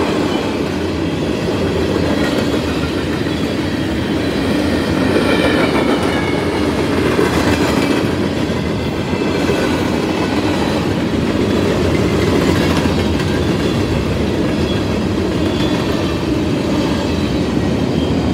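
Freight cars of a fast mixed train, tank cars and covered hoppers, rolling past: a steady rumble of steel wheels on rail with a clickety-clack over the rail joints.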